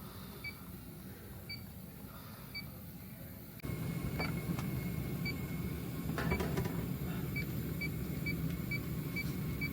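Inficon Stratus electronic refrigerant leak detector ticking with short high beeps, about one a second at first, then speeding up to about three a second as it picks up refrigerant leaking from the evaporator coil. A steady low rumble comes in about a third of the way through.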